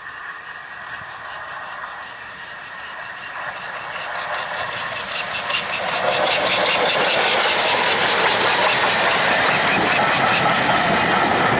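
GWR Manor class 4-6-0 steam locomotive working a train, its rhythmic exhaust beats growing louder as it approaches. The sound becomes loud and close about halfway through as the engine and coaches pass.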